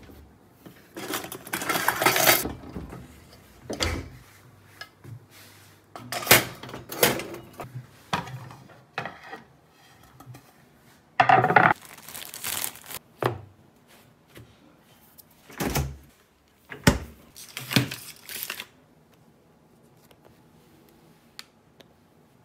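Kitchen handling noises: a drawer of pots and pans pulled open with a metal clatter, a plastic bread bag crinkling, and several sharp knocks of things set down on the counter, in separate bursts that stop about three-quarters of the way through.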